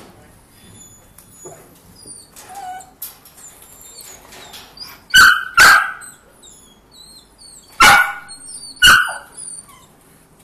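A dog barking: four sharp barks, two in quick succession about five seconds in, then two more about a second apart near the end.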